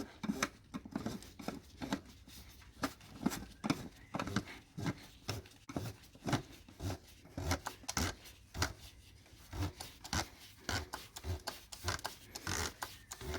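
Plastic oil filter housing cap of a Mercedes ML350 Bluetec diesel being screwed onto its housing by hand. It makes a string of short, irregular clicks and scrapes, a few a second, as the threads turn.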